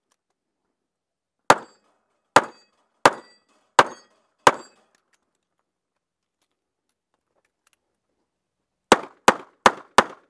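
Revolver gunshots, heard close up from the shooter's position. Five shots come evenly spaced about three-quarters of a second apart, then there is a pause of about four seconds, then a faster string of four shots near the end at about three a second.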